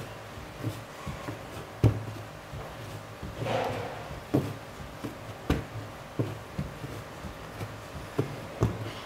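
Pizza dough being kneaded by hand on a tabletop: irregular dull thuds as the dough is pushed down and folded over, roughly one or two a second, with a sharper knock about two seconds in.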